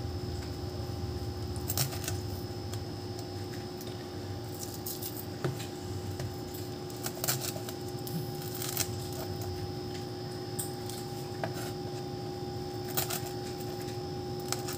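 Knife beheading small fish on a cutting board: scattered light clicks and knocks at irregular intervals, over a steady electrical hum.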